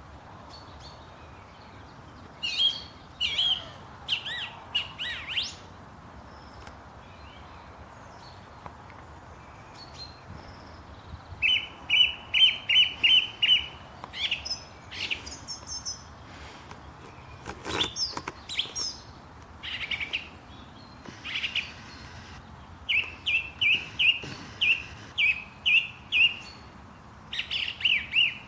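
Small birds chirping in short bursts of high notes, some in quick runs of repeated chirps, with pauses between, over a faint steady outdoor hiss.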